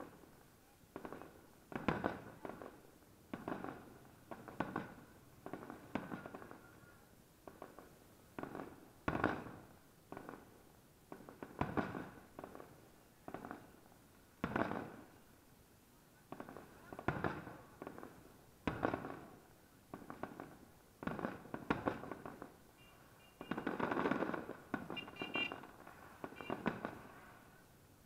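Aerial firework shells bursting one after another, a sharp bang about every one to two seconds, each trailing off in a short rumbling echo. About three-quarters of the way through, several bursts come close together.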